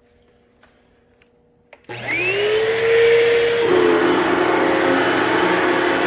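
Hoover Total Home Pet upright vacuum switched on about two seconds in, after a faint click: its motor spins up with a rising whine, drops to a slightly lower note about a second and a half later, then runs steadily and loud. It has a freshly fitted brushroll belt, replacing one that was slipping.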